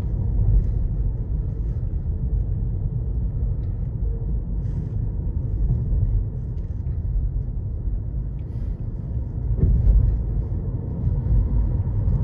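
Steady low road and tyre rumble heard inside the cabin of a 2022 Nissan Leaf S electric car cruising at moderate speed, with no engine sound. There is a brief louder thump about ten seconds in.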